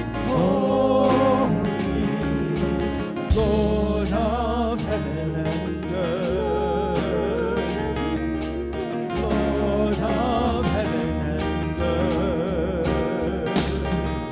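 Contemporary worship band playing a song with a vocalist singing, with guitar, bass and drums keeping a steady beat.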